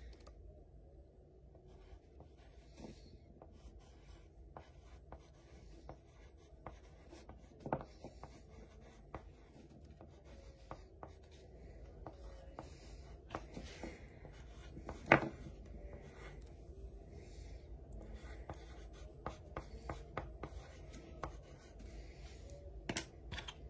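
Pencil scratching across paper while writing, faint, with a few sharp taps, the loudest about fifteen seconds in.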